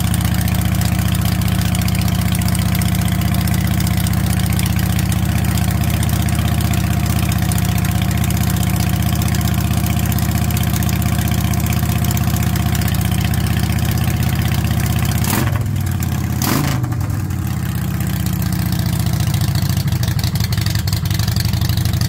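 2008 Harley-Davidson Rocker's 103-cubic-inch V-twin idling steadily while still a little cold, which the owner thinks might mean it is low on fuel. About fifteen seconds in its running briefly changes, with two sharp clicks and a short drop in level, then it settles back to a steady idle.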